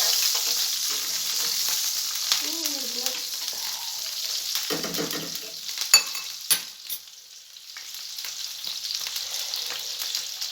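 Butter and olive oil sizzling in a hot frying pan, with a couple of sharp clicks about six seconds in; the sizzle briefly dies down a second later.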